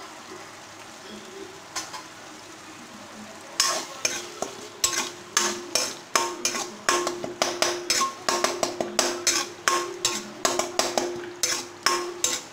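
Spice paste frying in oil in a metal pan, then from about three and a half seconds a metal spatula stirring and scraping against the pan, about two strokes a second.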